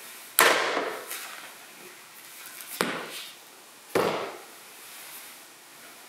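Handset of an old desk telephone hung up on its cradle with a sharp clunk, followed by two softer knocks about two and a half and three and a half seconds in.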